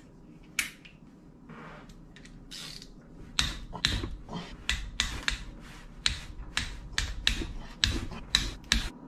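Hand tools and metal parts being worked on a motorcycle engine's top end: a run of sharp clicks and knocks, about two or three a second, starting about three seconds in.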